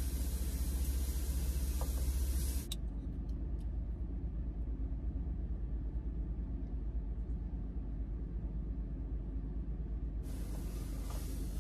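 Portable cassette gas stove burner hissing under a frying pan of sizzling vegetables. The hiss cuts off abruptly a little over two seconds in as the flame is turned off, leaving a low steady hum and a few faint clicks. The burner hiss starts again near the end once the flame is relit.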